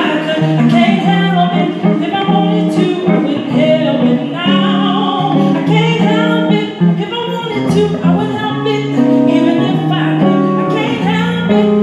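A woman singing a soul song live into a microphone, with held and bending notes, accompanied by a guitar.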